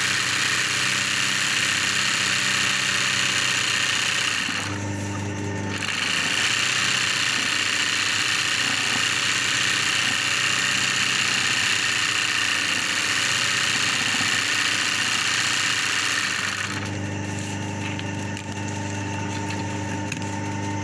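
Embroidery sewing machine stitching at speed while the hoop is guided by hand, with a steady high-pitched rattle. Stitching stops for about a second, roughly four and a half seconds in, and again for the last few seconds. During the stops only the steady hum of the machine's electric motor is heard.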